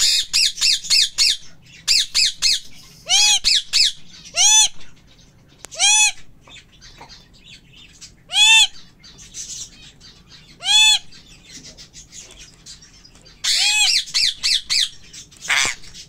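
Pet parrot squawking: a quick run of short, harsh calls at the start, then single squawks every second or two, and a longer harsh burst of calls near the end.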